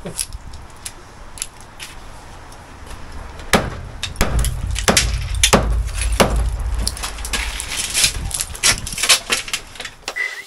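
Irregular sharp knocks and clatter of bricks being struck and pulled loose from a half-demolished brick porch pier by hand, the strikes coming thick from a few seconds in, over a low rumble.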